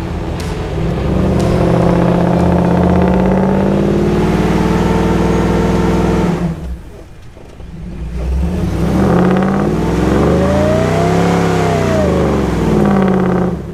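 The Morrvair off-road rig's engine revving hard as it drives through soft sand. It holds high revs, drops away briefly about six and a half seconds in, then climbs and falls back before cutting off at the end.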